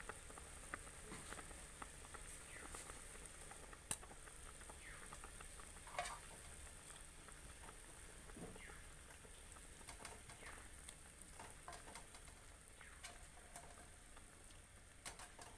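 Fish and cauliflower curry simmering in a frying pan, faintly sizzling and bubbling with scattered small pops and a couple of sharper clicks about four and six seconds in.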